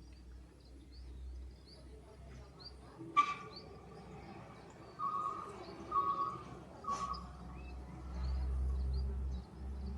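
Small birds chirping, with a short buzzy call repeated about once a second from about halfway. A low rumble of wind on the microphone swells near the end, and there are two sharp clicks.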